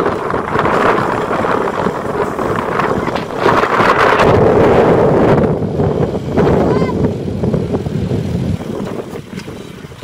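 Dump truck engine running to work the tipping hoist while a load of soil slides out of the raised bed, with wind noise on the microphone. It is loudest about four to five seconds in and eases off near the end.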